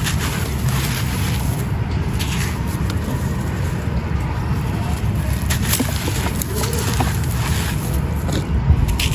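Wind rumbling on the microphone, with scattered dry crunches of grey concrete chunks being crumbled.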